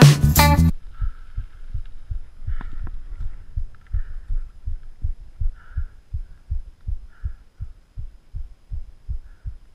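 Quiet break in the background music: a steady, low thumping pulse of several beats a second that fades toward the end, with a few faint higher blips above it.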